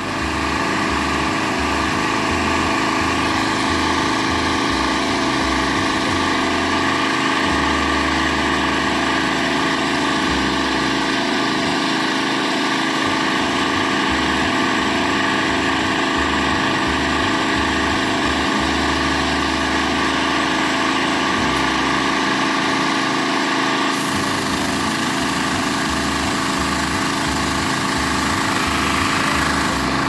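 Small petrol engine of a power sprayer running steadily as it drives the pump that feeds a spray gun.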